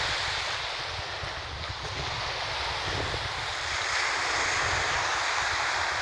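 Small waves breaking and washing up a sand-and-shingle shoreline, with wind buffeting the phone's microphone as a low, fluttering rumble.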